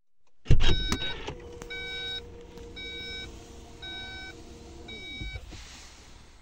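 A car's warning chime beeping five times, about once a second, over a steady electric motor hum that winds down and stops near the end. A few sharp clicks come first.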